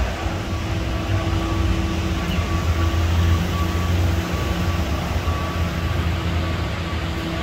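A vehicle running with a steady, loud low rumble and a steady hum, with a faint high beep repeating on and off.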